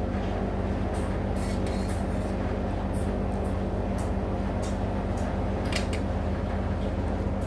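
Steady low electrical hum of a running fan motor, with a few faint short clicks over it.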